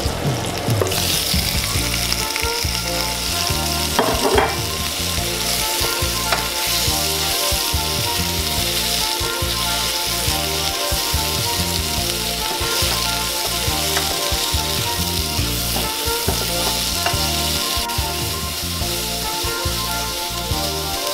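Chopped onion, tomato and mushroom sizzling in hot oil in a non-stick frying pan, the sizzle starting about a second in as the vegetables go into the pan. A wooden spatula stirs them as they fry.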